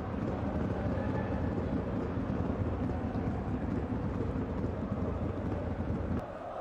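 Football stadium crowd noise: a steady din from the stands with faint chanting, dipping briefly about six seconds in.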